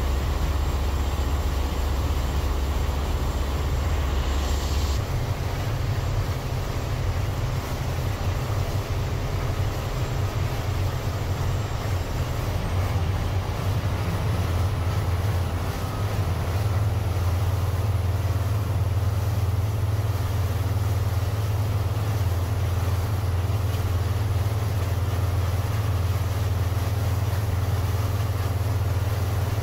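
Boat engine running steadily, a loud low drone heard from inside the cabin, its pitch stepping up about five seconds in and shifting again a little after halfway.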